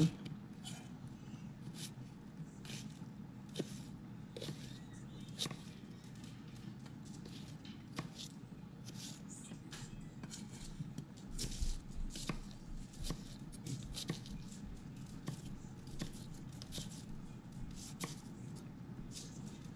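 Chef's knife cutting an onion on a wooden cutting board: irregular knocks of the blade striking the board, with a louder run of cuts a little past halfway, over a steady low hum.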